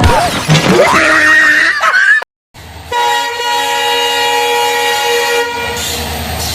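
A loud, steady multi-note train horn blast starts about three seconds in and holds for about four seconds. Before it comes a loud jumble of sliding pitches and a brief silent break.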